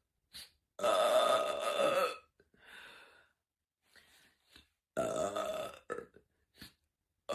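A woman belching loudly twice, about four seconds apart. The first belch lasts about a second and a half; the second is shorter, about a second.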